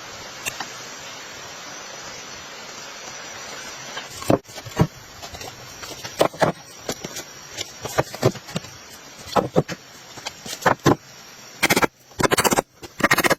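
Steady hiss of rain with a faint high steady tone. From about four seconds in come irregular knocks and scrapes of something being handled, which turn denser and louder near the end.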